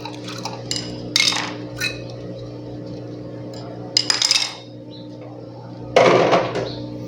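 Metal and plastic parts and tools clinking and clattering as they are handled inside a refrigerator during fan motor removal, in short bursts with the loudest clatter about six seconds in, over a steady low hum.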